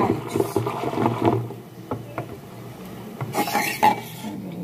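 Wooden molinillo spun fast between the palms inside an aluminium chocolatera, rattling and rubbing against the pot as it froths hot chocolate, stopping about a second in. A few light clicks follow, then a short clatter with a knock near the end.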